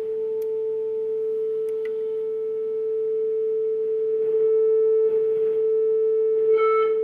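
Steady 440 Hz sine test tone played through a Rockford Fosgate Punch P400x2 car amplifier into a test speaker, getting louder about halfway through as the level is turned up. Near the end it picks up a buzzy edge that pulses in about once a second: the amplifier starting into clipping.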